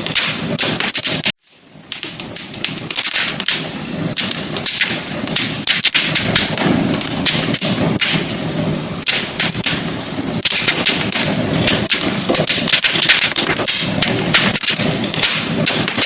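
Wood fire crackling in a fireplace: dense, irregular pops and snaps over a steady hiss. It cuts out for about half a second near the start, then picks up again.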